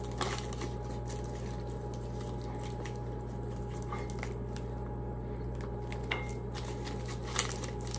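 Quiet chewing of a piece of cheese, with a few small mouth clicks and a little handling of a plastic wrapper, over a steady low hum.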